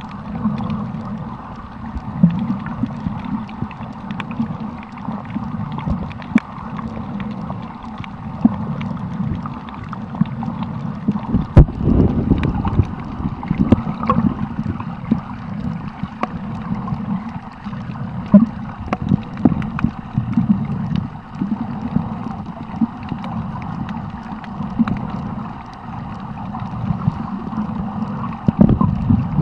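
Underwater sound of water moving and sloshing around a submerged camera, a muffled continuous rumble with many small clicks scattered through it. It surges louder for a moment about 12 seconds in.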